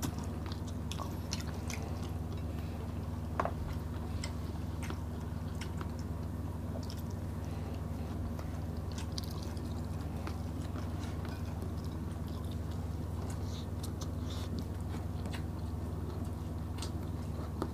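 Close-miked chewing and lip smacking of people eating smoked fish and rice with their fingers, with scattered small clicks, over a steady low hum.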